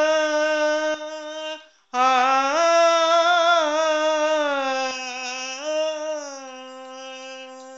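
A solo voice draws out long, Carnatic-style sung notes on a single vowel, the pitch wavering in ornaments. After a short breath about two seconds in, a second long phrase settles into a steady note that grows softer near the end.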